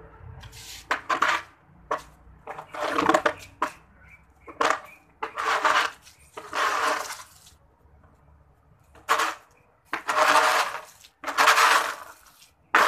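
Soft grass broom sweeping fallen fruit and leaves across concrete into a dustpan. A brushing swish comes with each stroke, about one a second, and some strokes bring a clatter of fruit knocking into the dustpan.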